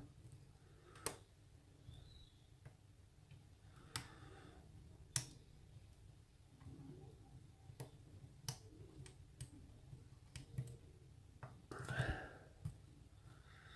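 A hook pick working the pins of a pin-tumbler rim cylinder under tension: faint, scattered sharp clicks at irregular intervals a second or a few seconds apart, with light scraping between.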